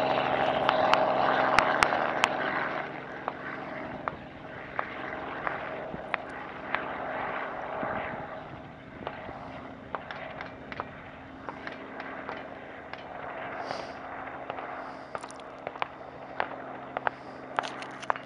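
Helicopter running with a steady hum. It is loud for the first couple of seconds, then much quieter, with irregular sharp clicks and pops scattered throughout.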